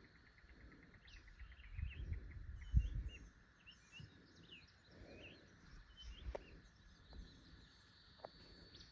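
Small birds chirping in short, scattered calls over a faint, steady high-pitched hum. A few dull low thumps about two to three seconds in, and another near the six-second mark, are the loudest sounds.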